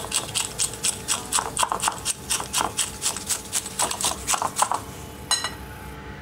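Spiral wire whisk beating eggs and sugar in a ceramic bowl, the wire striking and scraping the bowl about five times a second. The strokes stop near the end, followed by a single ringing clink.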